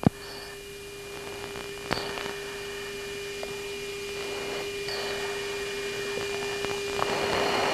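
Cockpit radio and intercom audio between transmissions: a steady hum-like tone under a hiss that slowly grows louder, with a few faint clicks.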